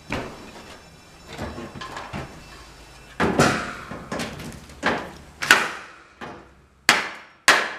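Irregular knocks and clunks from the parts of an antique bed frame being handled and fitted together, about eight or nine in all. They grow sharper toward the end, and the loudest come in the last two seconds.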